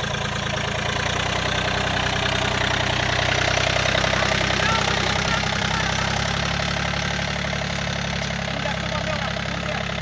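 Small farm tractor's diesel engine running steadily while it pulls a wooden plough frame through the field, with men's voices faintly over it.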